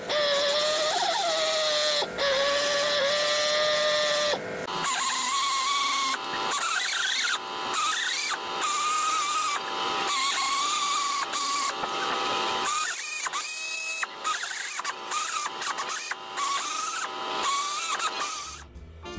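Hand-held air tool working a steel patch strip, run in short bursts with a high whine. The whine climbs to a higher pitch about four seconds in and stops shortly before the end.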